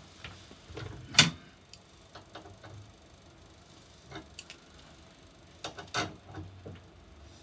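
Scattered metallic clicks and knocks of pliers working on the table saw's fence lock lever. The sharpest knock comes about a second in, and a few more come near the end.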